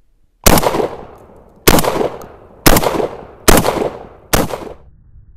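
Five 12-gauge shots from an Emperor Arms Mogul Ultra semi-automatic shotgun, fired in quick succession about a second apart with double-up buckshot, each blast trailing off in a short echo.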